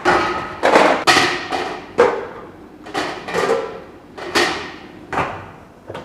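Oysters in the shell being set down one after another in a steamer: about nine hard clacks, each ringing briefly.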